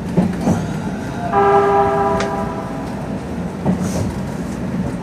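Odakyu 3000-series electric train running, with a few rail-joint clicks. A little over a second in, a horn sounds one steady note for about a second.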